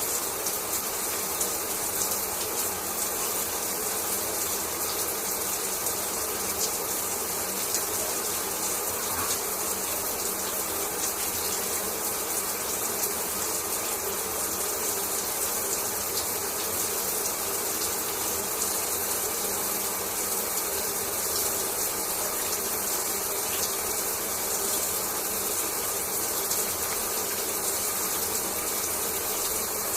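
Shower water spraying steadily, a continuous hiss of falling water with fine spattering ticks of droplets.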